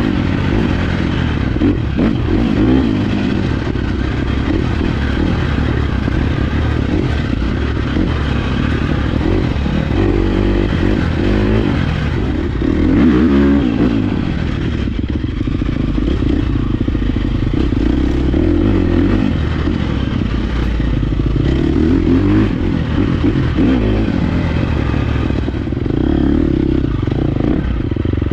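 2023 Husqvarna 350 FX's single-cylinder four-stroke engine pulling the dirt bike along a trail, its revs rising and falling over and over with the throttle.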